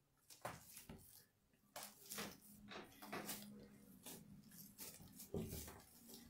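Faint squelches and soft pats of hands kneading and folding oiled focaccia dough on a wooden tabletop, over a faint low hum.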